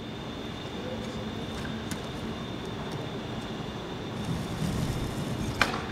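Low steady rumble of outdoor background noise, then skateboard wheels starting to roll on a flat felt rooftop, the rolling growing louder over the last couple of seconds, with a sharp click near the end.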